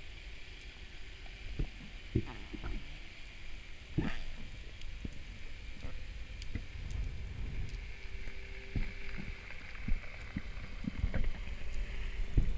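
Underwater sound heard through a camera's waterproof housing during a freedive: a muffled low rumble of water with scattered knocks and clicks from the diver's gear and movements, and a faint steady hum that comes and goes.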